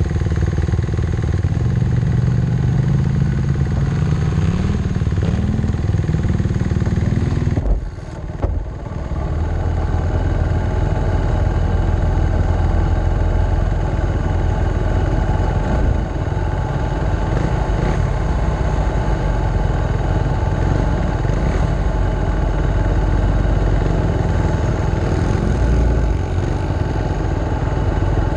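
Kawasaki dirt bike engine running close by, revved up a few times in the first several seconds. The sound dips briefly about eight seconds in, then the engine idles on steadily.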